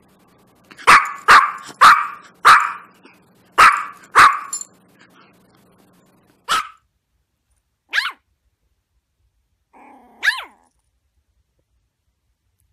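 Yorkshire terrier barking: a quick run of six sharp, high barks in the first few seconds, one more bark a little later, then two thinner yips with a sliding pitch near the end.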